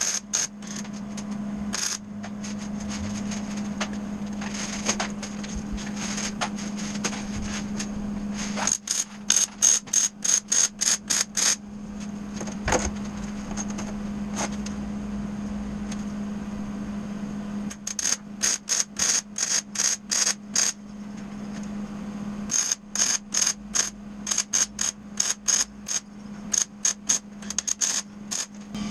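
MIG welder stitch-welding steel strut channel: three runs of quick crackling pulses, about four a second, as the trigger is pulsed, with a steady hum between runs.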